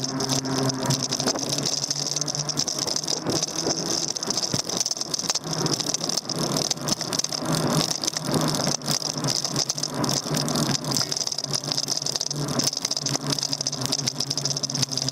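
Daymak Max e-bike rattling and knocking as it rolls over the road, picked up by a handlebar-mounted camera, with a steady high whine and a low hum running underneath.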